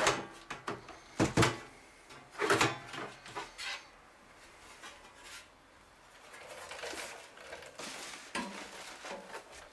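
Casing cover of a Synology DS1815+ NAS being pulled off and handled: a few sharp clacks and scrapes over the first few seconds, then quieter light handling.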